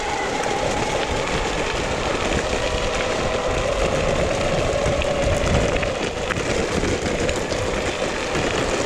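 BajaBoard S2 Atrax electric off-road skateboard riding over a dirt and gravel fire trail: a steady rumble of its 8-inch all-terrain tyres on the rough ground, with a faint steady whine from its electric motors under it.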